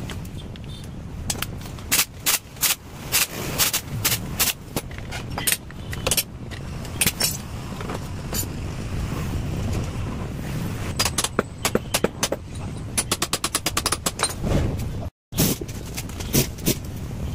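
Sharp metal-on-metal knocks from hand tools working on a motorcycle engine, scattered at first, then a fast run of evenly spaced clicks or taps over a steady low background.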